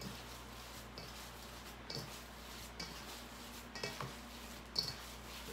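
Hands mixing and kneading a grated cassava, coconut and sugar mixture in a stainless steel mixing bowl: soft rustling with faint knocks against the bowl about once a second.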